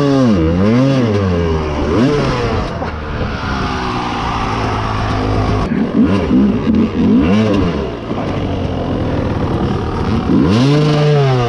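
Dirt bike engine revving up and down over and over as the rider works the throttle to climb over rocks, its pitch swooping low and back up in several swells, the strongest just after the start and near the end.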